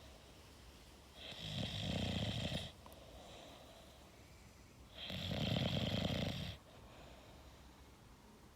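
English bulldog snoring: two long snores about four seconds apart, each lasting around a second and a half.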